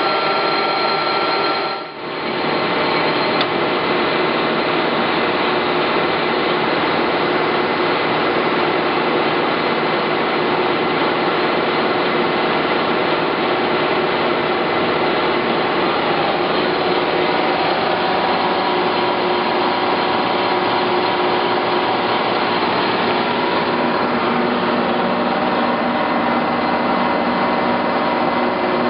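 Clausing Colchester 1755 geared-head engine lathe running steadily under its 10 horsepower motor, with the steady whine of its headstock gearing. There is a brief dip about two seconds in, after which it runs on steadily.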